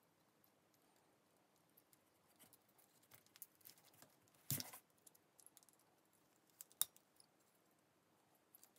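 Faint clicks and scrapes of a power drill's trigger switch and its wires being handled and worked loose with a small hand tool, with a louder short rattle about four and a half seconds in and a sharp click near seven seconds.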